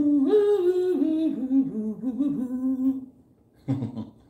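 A man humming a tune through closed lips for about three seconds, the pitch stepping and gliding up and down, followed by a short vocal sound near the end.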